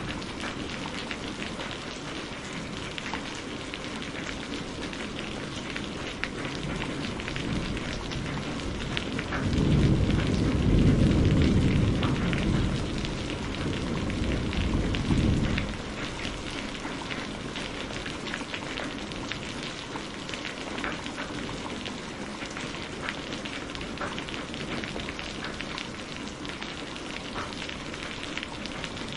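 Steady heavy rain with many close drop ticks. About ten seconds in, a low rumble of thunder swells and fades over about six seconds.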